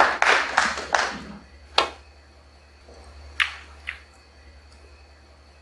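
Scattered audience clapping in acknowledgement of a good safety shot, dying away about a second in. A sharp click follows, then two more clicks about three and a half seconds in.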